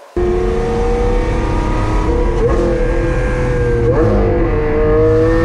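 Lamborghini Aventador SV's naturally aspirated V12, fitted with a catless Fi Exhaust system, running loud under acceleration. The sound cuts in abruptly a moment in, and its pitch climbs slowly, with two brief jolts about two and four seconds in.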